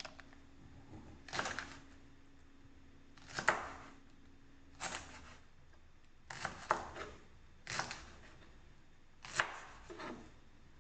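Kitchen knife thinly slicing leeks on a cutting board: about nine crisp cuts, irregularly spaced a second or two apart.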